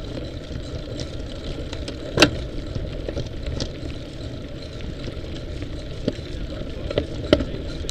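Mountain bike rolling down a dirt singletrack, picked up by an action camera mounted on the bike: a steady rumble of tyres and wind with several sharp knocks and rattles as it jolts over stones. The loudest knock comes about two seconds in.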